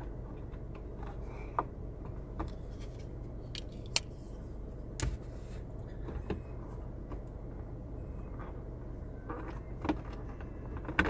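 Knife blade prying at a car's plastic dome light cover: scattered small clicks and scrapes of blade on plastic, over a steady low hum.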